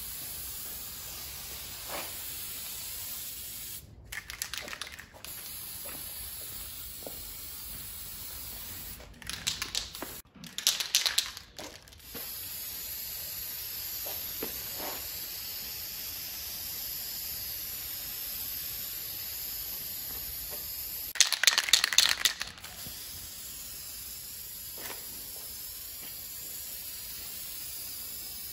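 Aerosol spray-paint can hissing in short spurts, about four in all, the longest and loudest near the end. The paint is touching up chipped spots on a smoked clay ridge-end tile.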